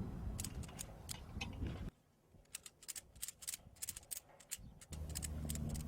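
Ratchet strap being tightened: a run of sharp ratchet clicks at uneven spacing over a faint low rumble.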